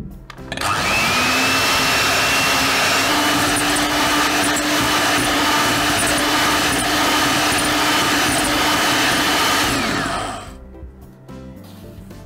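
Electric hand mixer whipping egg whites with sugar into meringue, its twin beaters spinning in a glass bowl. The motor spins up about half a second in, steps up to a higher pitch around three seconds, and winds down about ten seconds in.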